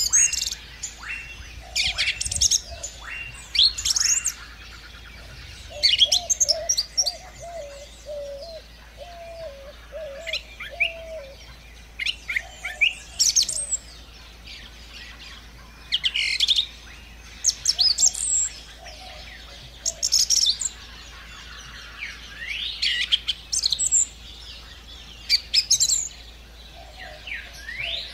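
Birds chirping in short clusters of sharp high calls every couple of seconds, with a lower, wavering call running for several seconds in the middle.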